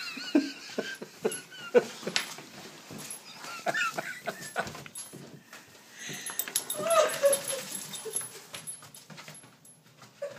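German shorthaired pointer whimpering in a few short, wavering calls while her booted paws knock and scuff repeatedly on a tile floor as she high-steps. She is unsettled by wearing winter booties for the first time.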